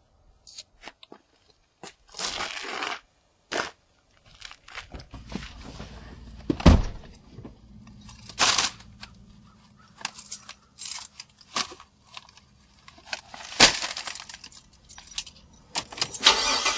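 Clicks, knocks and crinkling of a bag being handled inside a Jeep's cabin, with one heavy thud about seven seconds in, the sound of the car door shutting.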